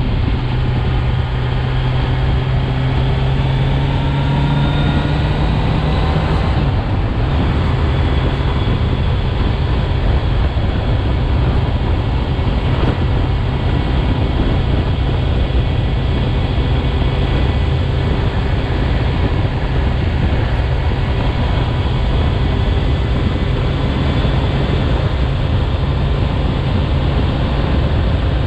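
Kawasaki Z900 (35 kW A2-restricted) inline-four engine running while the motorcycle is ridden, under a steady rush of wind and road noise. The engine note climbs slightly and then changes about six seconds in.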